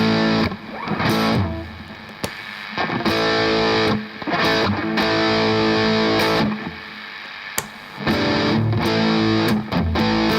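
Electric guitar played through a Behringer GDI21 overdrive/preamp pedal set for high gain: a series of distorted strummed chords, each ringing out for a second or so with brief gaps between them.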